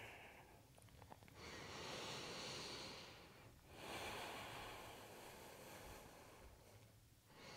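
Faint breathing: two long breaths of airy hushing, each about two seconds, the first starting about a second and a half in and the second about four seconds in. A few faint ticks come just before the first breath.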